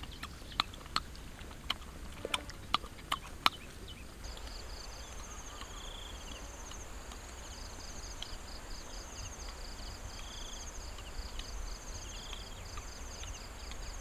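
A few sharp clicks in the first seconds, then a steady chorus of insects chirping in a fast, even pulse, with a shorter note repeating every couple of seconds.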